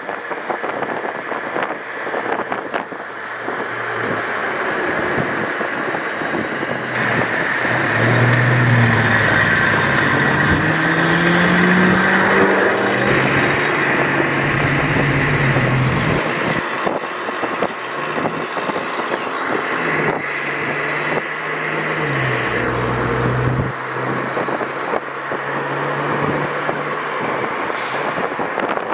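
Turbocharged Mitsubishi Lancer Evolution X driving by, its engine note climbing and dropping as the revs rise and fall, loudest in the middle, over wind noise on the microphone.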